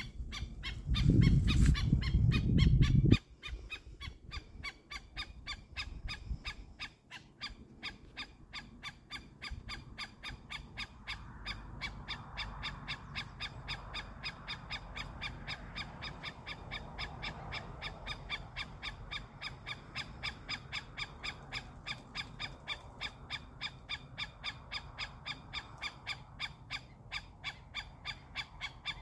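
A long, very even series of short repeated calls, about three a second, from an animal at a pond. A loud low rumble covers the first few seconds.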